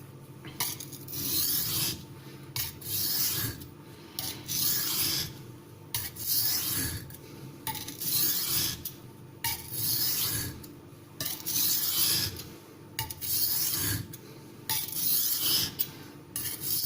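A steel kitchen knife edge (MBS-26 steel) being stroked back and forth under firm pressure on a Missarka 500-grit sintered aluminium oxide sharpening stone. It makes a repeated hissing scrape, about one stroke a second.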